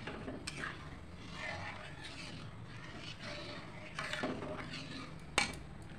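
Metal spoon stirring and scraping semolina, milk and water in an aluminium kadai, with one sharp clink of spoon on pan near the end, over a low steady hum.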